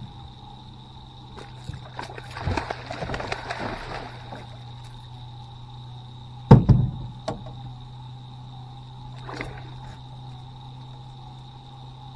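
Water splashing as a hooked catfish thrashes at the side of the boat, then a loud thump about six and a half seconds in as the fish is grabbed and hauled aboard, followed by a couple of lighter knocks. A steady hum runs underneath.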